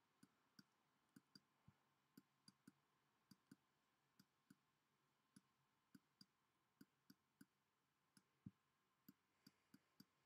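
Faint, irregular clicking, two or three small clicks a second, from a stylus tapping and lifting on a drawing tablet while words are handwritten.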